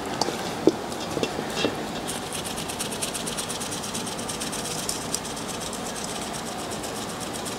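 Plastic shaker of dry poultry rub shaken over a steel bowl of chicken wings: a fast, even rattle of seasoning that starts about two seconds in and fades a few seconds later, after a few light clicks.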